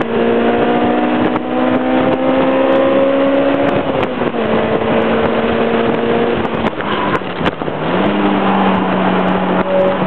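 Honda S2000's four-cylinder engine heard from inside the car under hard acceleration. Its pitch climbs steadily and then drops sharply at an upshift about four seconds in. It holds a level note, dips near the end and settles on a steady lower note, with wind rushing past throughout.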